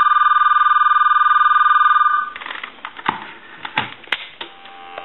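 AT&T 210 Trimline telephone's electronic ringer sounding one warbling ring of about two seconds, a rapidly pulsing high tone, as it is tested. The ring then stops and is followed by a few clicks and knocks, and a steady low tone comes on near the end.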